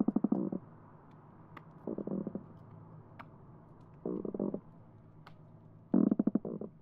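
Croakers drumming underwater, heard by hydrophone: four short bursts of rapid knocking pulses, one about every two seconds. These are the males' swim-bladder spawning calls to attract females. Faint sharp clicks are scattered between the bursts over a low steady hum.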